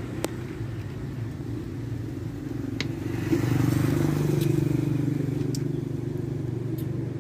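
A vehicle engine running steadily, louder from about three seconds in, with a few faint clicks.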